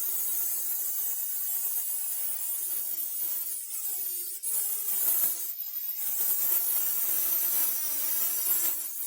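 Small handheld rotary tool running at high speed, trimming the metal heatsink fins of a thin client, with a motor whine and a grinding hiss. The whine sags under load, drops out briefly about halfway through, then picks up again.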